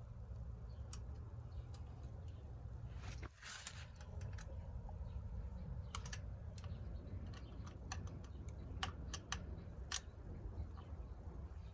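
Irregular light metallic clicks and taps of a wrench working the handlebar stem nuts on an e-bike, with a short cluster about three and a half seconds in, over a steady low rumble.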